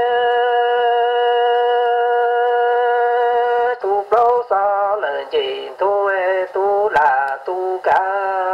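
A solo singing voice. It holds one long, steady note for nearly four seconds, then sings a run of short syllables that waver and slide in pitch.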